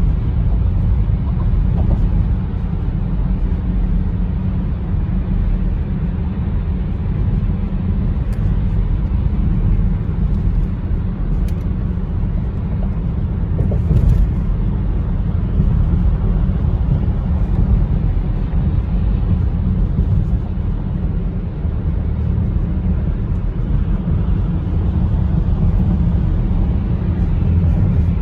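Steady low rumble of a car driving at highway speed, heard from inside the cabin: tyre and road noise with the engine underneath.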